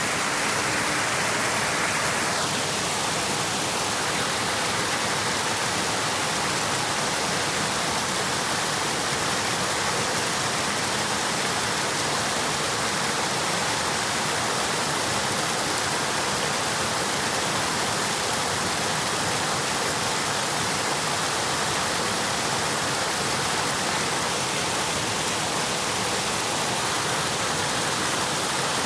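River water flowing and rushing: a steady hiss that is bright and even throughout, easing slightly in its middle range about two seconds in.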